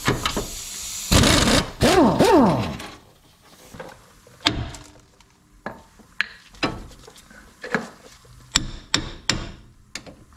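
A pneumatic tool whirs for about three seconds on the outer tie rod end nut. It is followed by about ten separate hammer blows against the steering knuckle, knocking the tie rod end stud loose.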